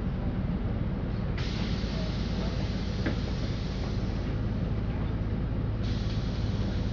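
LiAZ-5292 city bus heard from inside the cabin: a steady low engine rumble, with a broad hiss joining about one and a half seconds in and growing louder again near the end.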